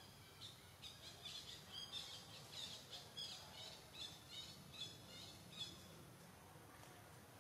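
A small bird chirping faintly in a quick series of short, high notes, about three a second, which stops about two-thirds of the way through.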